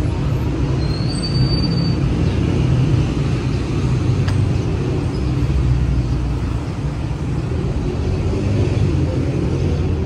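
Steady low rumble of city traffic, an even drone with no distinct events.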